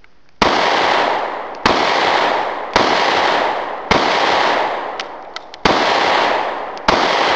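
Six shots from a Kahr CW40 .40 S&W pistol, each ringing out with a long echo. A longer pause comes before the fifth shot, with a few faint clicks in it: the pistol's intermittent failure-to-fire hiccup, blamed on a spring inside the gun.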